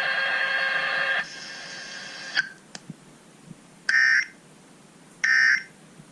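Three short, identical warbling data bursts about a second and a half apart: the Emergency Alert System's end-of-message (NNNN) codes closing a required monthly test on FM radio. Before them a loud steady tone cuts off about a second in, followed by a click.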